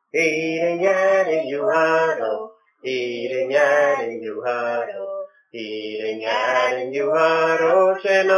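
A man and two boys singing a Scottish Gaelic song together, unaccompanied. The phrases are broken by two short pauses for breath.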